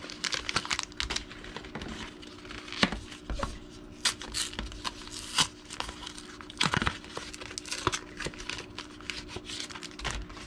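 Trading-card booster-pack packaging being crinkled and torn by hand in short, irregular rips and rustles.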